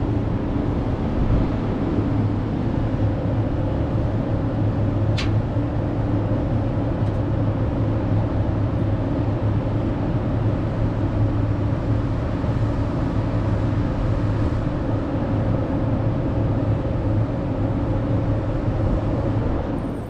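Steady outdoor city drone: a low, constant mechanical hum of traffic and machinery, with one short click about five seconds in.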